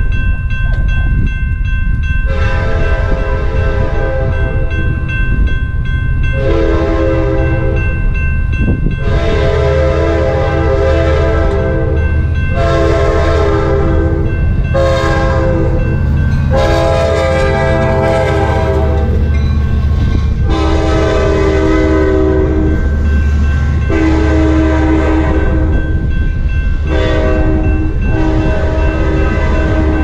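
A Sounder commuter train's horn blowing about nine long blasts in a row, each two to three seconds, as it approaches the grade crossing. Under it the crossing bell rings steadily, and strong wind rumbles heavily on the microphone.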